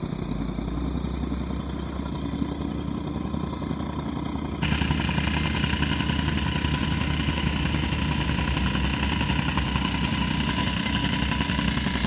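Steady engine noise from motorcycles and road-building machinery running on the site. About four and a half seconds in it suddenly gets louder and fuller and stays that way.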